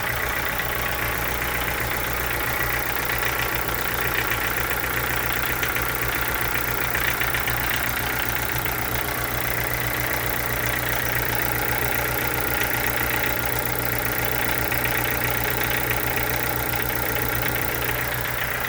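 Chevrolet Corsa sedan engine idling steadily, with a fast, even ticking running through it: the unexplained engine noise the owner is asking about.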